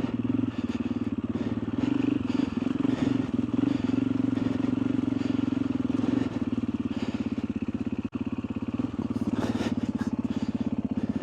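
Motorcycle engine running at a steady low speed, its rapid, even firing pulses heard throughout as the bike is ridden slowly.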